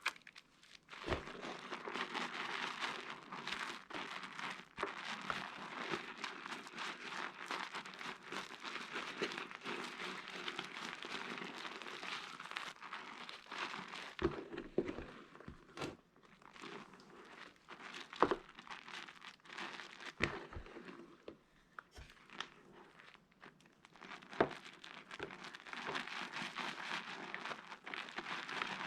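Pieces of soap crackling and crunching as hands work them, a continuous crinkly crackle with a few sharper snaps scattered through and brief quieter lulls.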